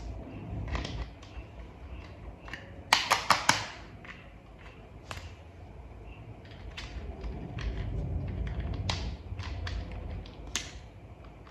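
Hard plastic toy parts clicking and tapping as they are fitted together, with a quick run of four loud clicks about three seconds in, over a low rumble.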